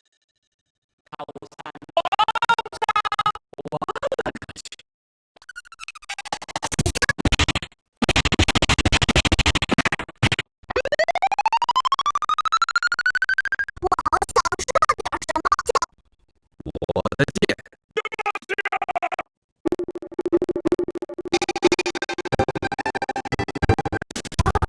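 A string of about nine short sound-effect clips and music stingers, played one after another with brief silent gaps. Some have a record-scratch sound, and one in the middle is a long rising whistle-like glide.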